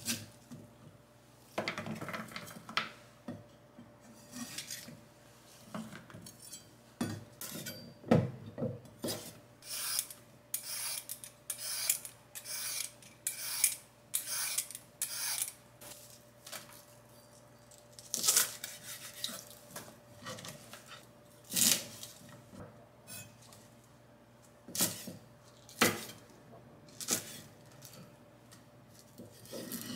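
Dishes and cutlery clinking and scraping in a kitchen: an irregular run of sharp clicks and clatters, over a faint steady hum.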